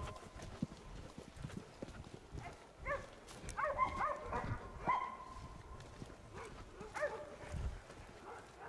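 Hunting dogs baying at a distance, a string of short calls, some held and some bending up and down, bunched about three to five seconds in and again near seven seconds. Footsteps crunch on a dirt track.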